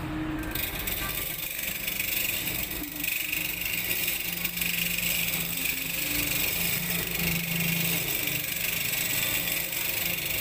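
Electric walk-behind concrete groove-cutting saw running steadily, its blade grinding into the concrete slab as it is lowered to cutting depth. The grinding is a steady hiss over the motor's low hum.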